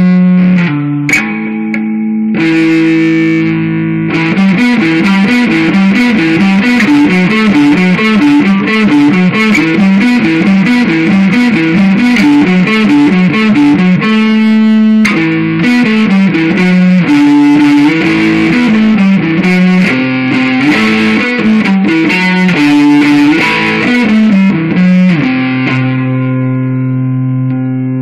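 Distorted electric guitar, an Epiphone Flying V, playing a heavy-metal riff: a few struck chords at first, then a long run of fast, rapidly repeated picked notes, ending on a held chord left ringing.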